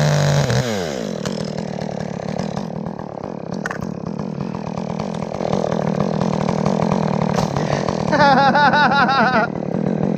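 Two-stroke chainsaw dropping from high revs to idle within the first second, then idling steadily. Near the end, a wavering, pitched sound rises over it for about a second and a half.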